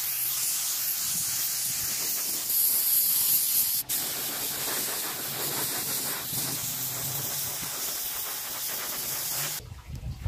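Steady, bright spraying hiss, broken by a brief gap about four seconds in and stopping abruptly near the end.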